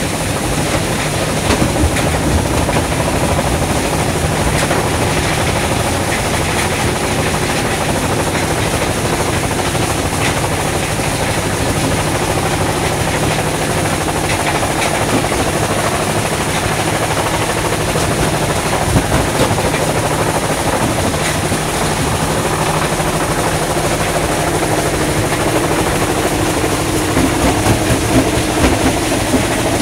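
Iron ore crushing plant running: crusher, conveyors and screen make a loud continuous rattling din over a steady low hum, with sharper knocks of rock toward the end.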